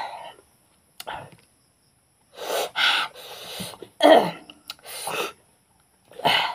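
A man's voice in about four short, breathy bursts with silent pauses between them.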